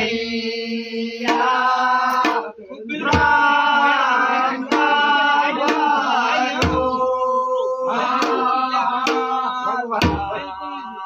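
Group of men singing a Kumaoni Holi song together in long, held notes, with a barrel drum (dhol) keeping time. The drum gives a deep stroke about every three and a half seconds, with lighter strikes between.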